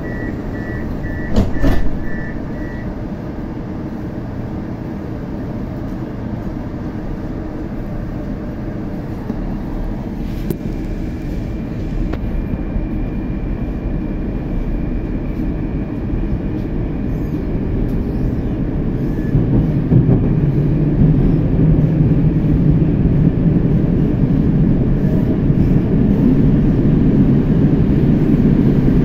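Moscow metro 81-765 "Moskva-2019" train closing its doors and pulling away: a row of short door-warning beeps and a single loud thump as the doors shut, then running noise that grows steadily louder as the train gathers speed, with a deeper hum coming in about two-thirds of the way through.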